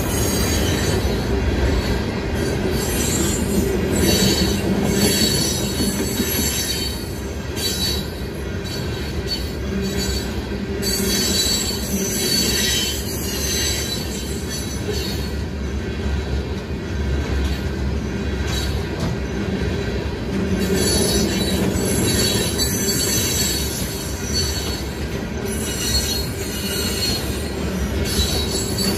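Freight cars rolling steadily past at a grade crossing, steel wheels running and clattering over the rails with high, steady tones above the rumble. The crossing's WCH electronic bell rings throughout the activation.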